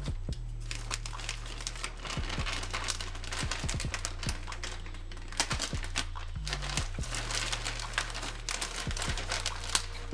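Plastic poly mailer bag crinkling and rustling as it is slit open with a utility knife, pulled apart and rummaged through, with many short crackles. A steady bass line of background music runs underneath.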